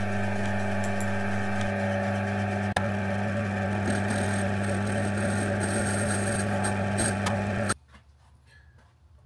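Myford metal lathe running with a steady hum and faint whine while a round form tool cuts a groove in a piston casting, with a single click about three seconds in. The sound cuts off abruptly near the end, leaving near silence.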